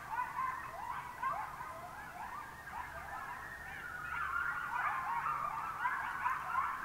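A chorus of many animals calling at once: short, rising calls that overlap continuously and grow louder about four seconds in.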